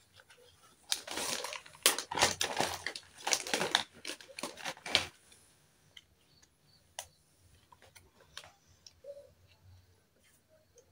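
Small plastic toy kitchen pieces being handled: a dense rustling clatter for about four seconds, then a few scattered light clicks as pieces are set down.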